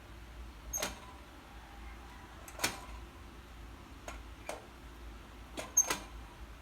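About seven short, sharp clicks and knocks at irregular intervals over a low steady hum; the loudest comes near the end.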